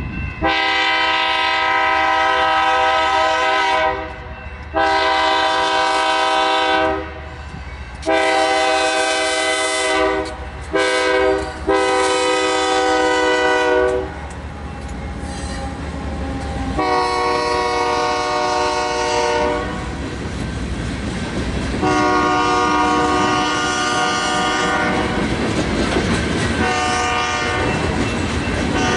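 A locomotive air horn sounding a series of blasts, mostly long with two short ones near the middle, as a train passes. Under the horn there is a steady rumble and the clatter of wheels on rail.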